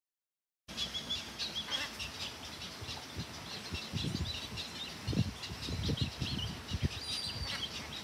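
A crowd of birds calling from a tree full of white egrets: many short high chirps overlapping densely, joined by low rough thumps from about halfway through. The sound starts abruptly less than a second in.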